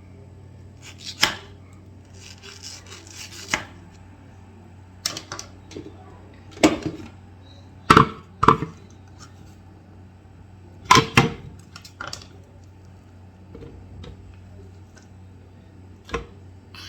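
A knife knocking on a cutting board at irregular intervals as a mango is cut up, with about ten sharp taps scattered through and the loudest near the middle.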